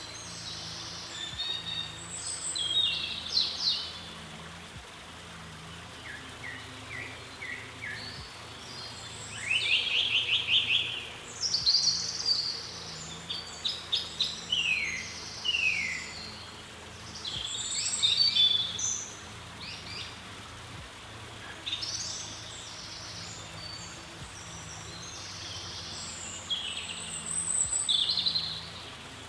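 Small birds chirping and singing in short, varied phrases of high trills and quick slurred notes, in bouts every few seconds, over a faint steady low background hum.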